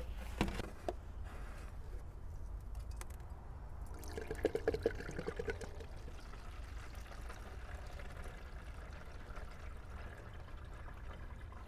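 Windshield washer fluid pouring out of a plastic washer reservoir through a funnel into a gallon jug, trickling steadily. There are a few plastic knocks near the start and a brief gurgle about four seconds in.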